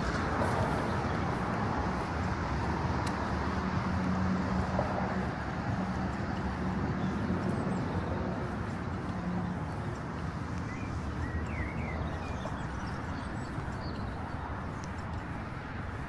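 Road traffic: a steady rush of vehicle noise that slowly fades, with a low engine hum that stops about nine seconds in. A few faint bird chirps come in after that.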